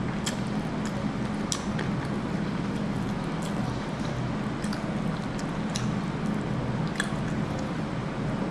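Close-up wet chewing and lip smacking of someone eating braised pork hock with gelatinous, collagen-rich skin. Scattered sharp wet clicks come about once a second over a steady low hum.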